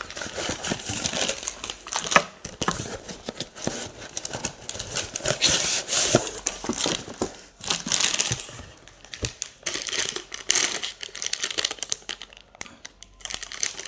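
Parcel packaging being handled and opened: irregular crinkling and rustling with scattered sharp crackles and taps, in busy spells with brief lulls.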